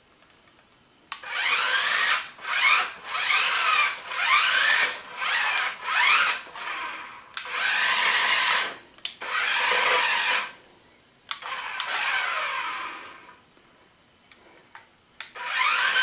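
Electric drive motors of a toy remote-control flip car whining in repeated short bursts, the pitch sweeping up and down as the car speeds up, spins and reverses. The bursts start about a second in, and there is a longer pause near the end.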